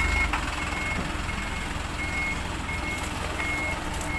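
A truck's reversing alarm beeping steadily: a single high tone, about three beeps every two seconds. The truck's engine runs low underneath.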